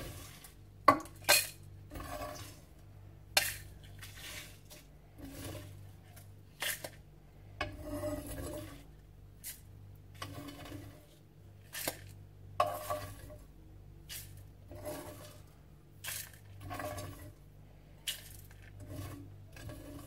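Dry-roasted whole spices, mostly coriander seeds with dried red chillies and bay leaves, being scooped from a frying pan into a plastic grinder jar. The seeds rattle and scrape, and the plastic jar knocks against the pan in irregular clicks, a few sharper knocks near the start.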